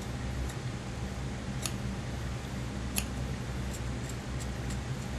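Tailor's shears cutting through a single layer of thick suit-jacket wool, a run of short crisp snips with two louder ones about a second and a half apart.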